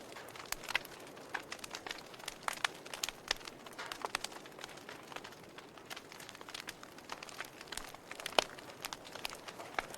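Wood fire in a fireplace crackling: irregular sharp snaps and pops over a soft hiss, with one louder pop about eight seconds in.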